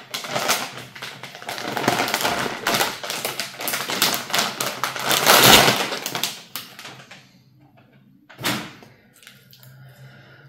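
Crinkling and rustling of a plastic anti-static bag as a graphics card is slid out of it, loudest about five and a half seconds in, then dying away, with one last short rustle about eight and a half seconds in.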